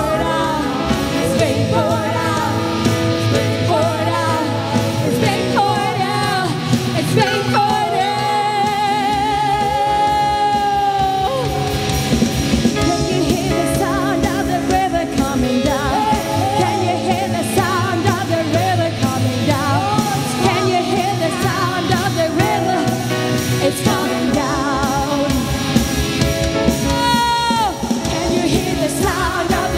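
Live worship band playing, with a steady drum beat under sustained instruments and a singing voice that holds one long note with vibrato about eight seconds in.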